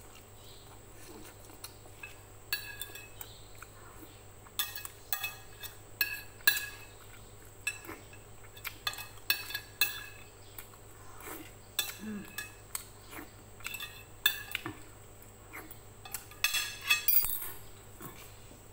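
Metal spoon and fork clinking and scraping on a ceramic plate: many sharp, ringing clinks at an uneven pace, coming thicker from about five seconds in.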